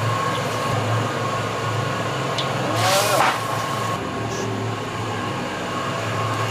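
Steady low roar of a commercial kitchen's wok burner running on high flame, with a brief loud clatter about three seconds in.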